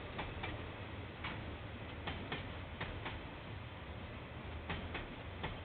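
Railway wagon wheels clicking over a rail joint as a slow train passes, the clicks coming in pairs about a quarter-second apart, over a steady low hum.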